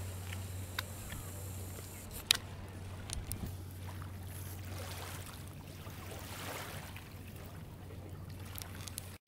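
Floodwater lapping and washing over a submerged cobbled quay, with a steady low hum throughout and a sharp click a little over two seconds in.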